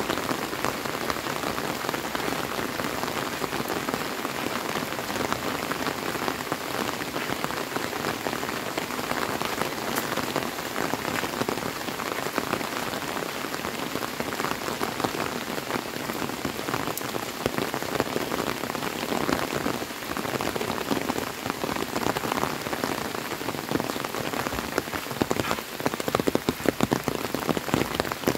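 Steady rain falling, a dense even patter, with sharper, louder drop hits close by over the last few seconds.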